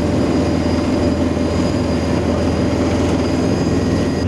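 Asphalt paver's diesel engine running at a steady speed, an even, unchanging drone.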